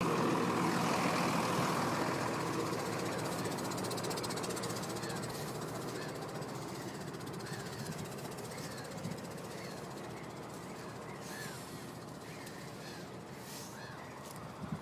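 Farm tractor engine running, loud at first and fading steadily, with a flock of birds calling in short rising-and-falling cries that grow plainer from about halfway through.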